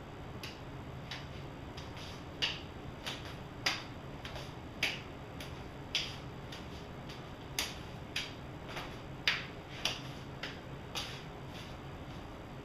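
Sharp slaps of hands and forearms striking and parrying each other in a slow partner tapping drill, coming at an irregular pace of about one or two a second.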